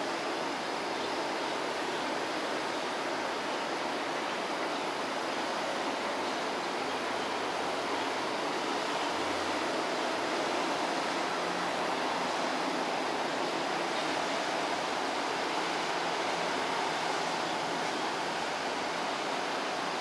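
Steady outdoor background hiss, even throughout, with no distinct events standing out.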